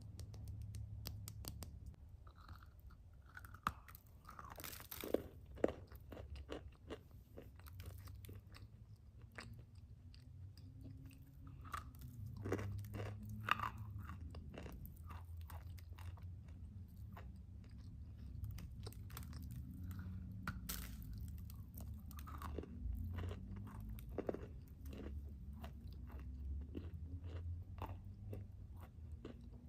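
A person biting and chewing crunchy food: a dense run of sharp crunches and crackles, several a second, with the loudest snaps a few seconds in.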